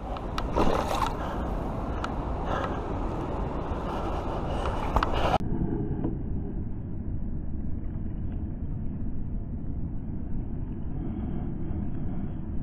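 Shallow river water rushing and splashing around wading legs, with a steady low rumble and several sharp splashes in the first five seconds. The sound turns dull and muffled about five seconds in.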